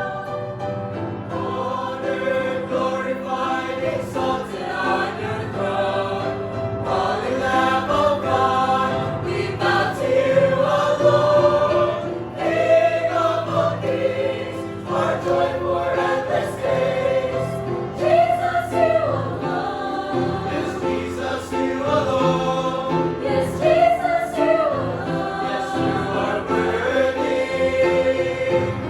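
Church choir singing a hymn in parts, the voices sustained and continuous.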